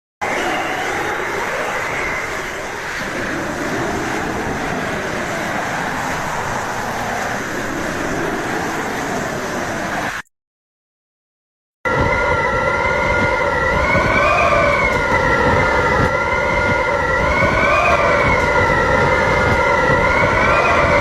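Two wind sound effects one after the other, with a short silence between them a little past the middle. The first is a dense howling wind whose pitch wavers. The second is a whistling wind: several high tones that rise and fall together slowly, swelling about every four seconds.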